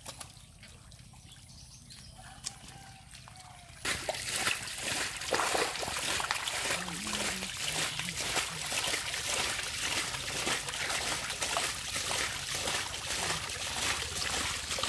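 Many stinging catfish thrashing in shallow muddy water, making a dense crackling splash and slosh. It starts suddenly about four seconds in, after a quiet stretch of faint water sounds.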